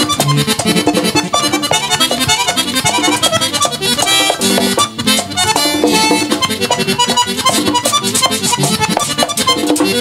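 Live Dominican típico band playing an instrumental passage between verses: a button accordion carries the melody over tambora, güira and electric bass in a quick, even beat.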